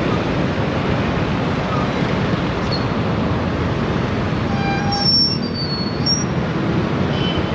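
Steady road noise from a Yamaha Aerox scooter ride in slow traffic: engine and wind noise on the rider's microphone. Near the middle there is a brief high-pitched squeal of several tones that slide a little, about a second and a half long.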